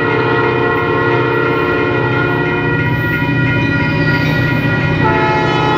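Locomotive air horn sounding a long, steady chord as EMD SD40 diesel locomotives lead a freight train toward a grade crossing, over the rumble of their diesel engines. The horn's chord shifts about five seconds in.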